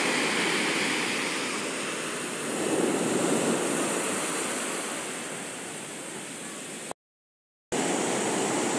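Ocean surf breaking and washing up on a sandy beach: a steady rush that swells about two and a half seconds in and slowly fades. Near the end it drops out completely for under a second, then the surf sound returns.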